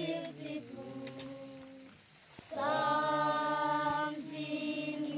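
A group of children's voices singing unaccompanied, holding long notes together. The singing fades almost away about two seconds in, then comes back louder with a new held phrase.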